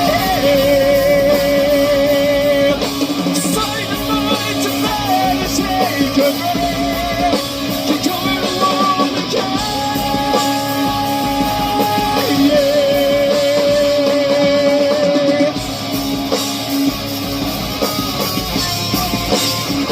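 A rock band playing: electric guitar and a singer, with long held notes that waver in pitch.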